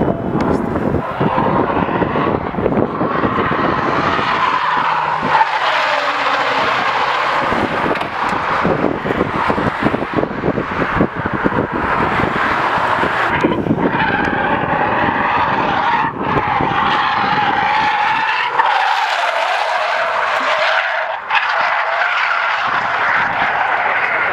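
Car tyres squealing almost without break as cars drift sideways at high speed on asphalt, with engine noise under the screech. The squeal wavers in pitch and drops briefly a couple of times.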